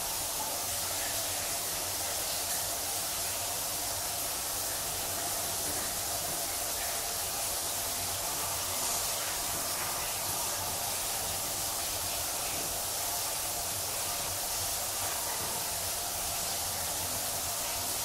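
Shower running steadily, water spraying from the shower head.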